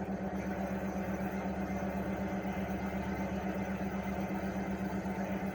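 Mini-split air conditioner outdoor unit running in cooling mode: a GMCC single-rotary inverter compressor and propeller fan. It makes a steady low hum that throbs in a fast, even rhythm.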